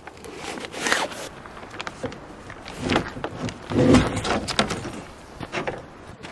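Nylon fabric rustling and scraping in irregular bursts as a folding camp cot's fabric is stretched over its pole frame, with knocks and clicks from the poles being fitted. There is a louder thump about four seconds in.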